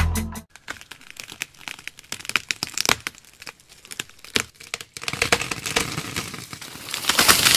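Irregular crackling and crunching of dry pine needles and twigs as an RC excavator moves on its tracks and works its grapple against a small tree trunk. It is sparse and faint at first, then grows denser and louder over the last couple of seconds.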